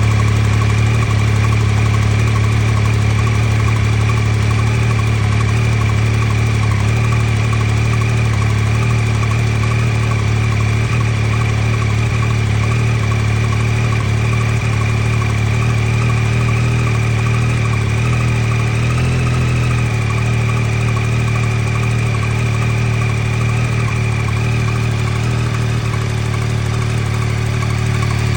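2023 Yamaha XSR900's 890 cc three-cylinder engine idling steadily on a cold start, with the ticking that the owner is unsure is normal.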